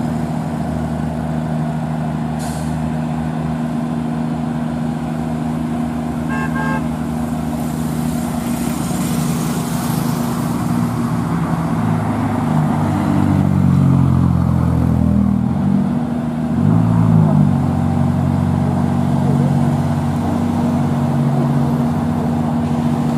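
Scania P380 truck's diesel engine running under heavy load as it climbs slowly with a crane on its trailer, a steady low drone that grows louder and shifts in pitch in the second half. A short horn toot sounds about six seconds in.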